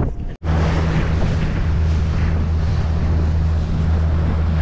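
Outboard motor on a Quintrex Top Ender 481 aluminium boat running under way, a steady low drone that cuts in suddenly just after the start. Over it come the rush of the wake and wind on the microphone.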